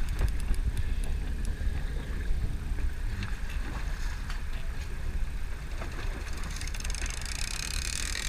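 Steady low wind rumble on the microphone aboard a boat at sea, with a few faint clicks. From about six seconds in, a hiss with a fine rapid buzz joins it and builds toward the end.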